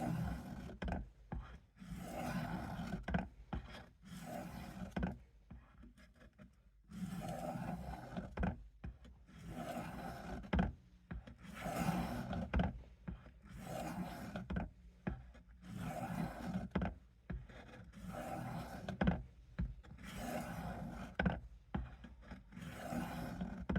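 Knife blade drawn in repeated strokes across the fine grit stone of a Work Sharp sharpener lubricated with WD-40: a rasping rub about once every one to two seconds while the edge is honed.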